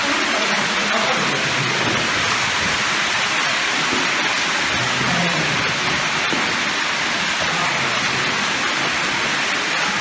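Steady rush of running water inside a limestone cave.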